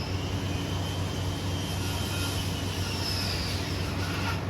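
A steady low hum with the faint high whine of an aircraft passing overhead, rising and then falling over a few seconds.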